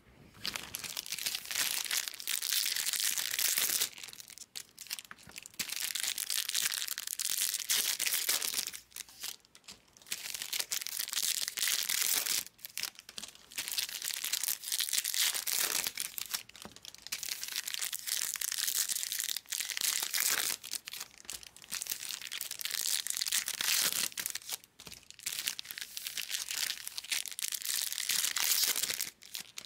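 Foil wrappers of Bowman Chrome trading-card packs being torn open and crinkled by hand, in stretches of a few seconds with brief pauses between.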